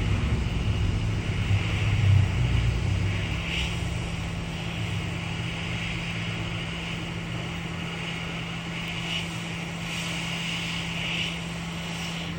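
Hot air rework gun blowing steadily: a continuous airy hiss over a low steady hum.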